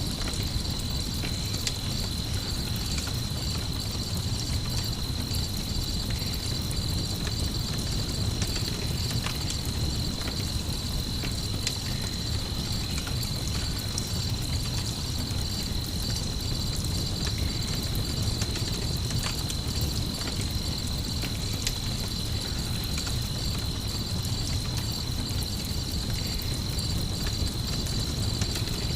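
Crickets chirping in a steady high trill, over the crackle and pop of a campfire and a low steady rumble.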